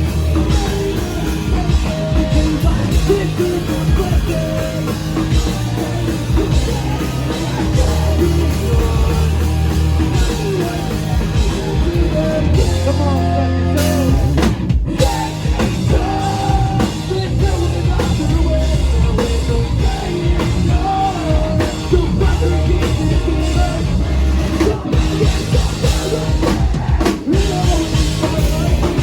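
A live rock band playing loudly, with a pounding drum kit and guitars, and a brief stop about halfway through.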